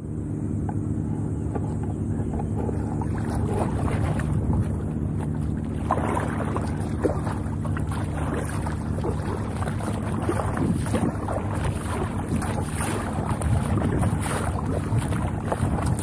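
Wind buffeting the microphone over water splashing and slapping against the bow of an inflatable Alligator 2S Pro packraft as it is paddled through light chop. The noise is steady, with short irregular splashes throughout.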